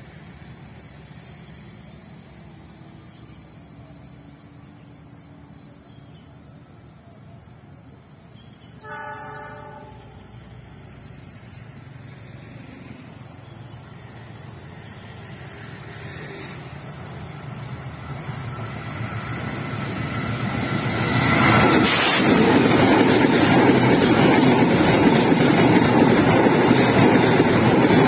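Container freight train: its horn sounds once for about a second, about a third of the way in. Then the train's rumble slowly builds as it approaches, and about three-quarters of the way in the wagons start passing close by, their wheels loud and steady on the rails.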